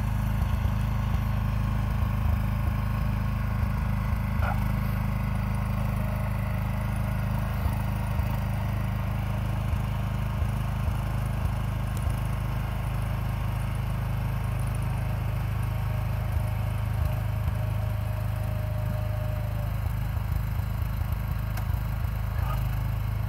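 John Deere garden tractor engine running steadily while the tractor pushes snow with its front blade.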